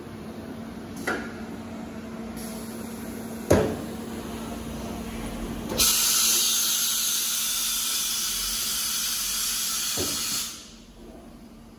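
Compressed air hissing loudly on a Motionmaster 5-axis CNC router for about five seconds, then cutting off sharply. Before it come two sharp clicks, the second a loud knock, over the machine's steady electrical hum.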